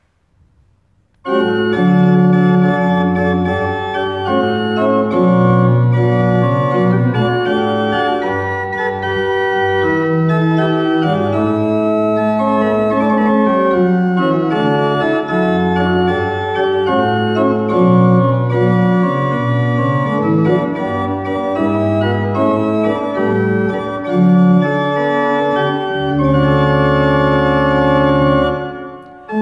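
Church pipe organ playing chords, starting about a second in and ending on a long held chord near the end.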